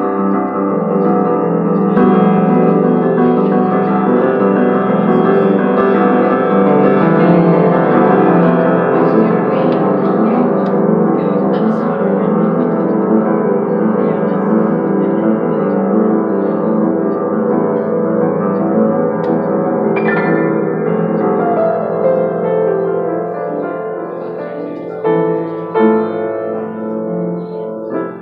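Grand piano played with both hands: full sustained chords under a moving melody, growing a little quieter after about twenty seconds.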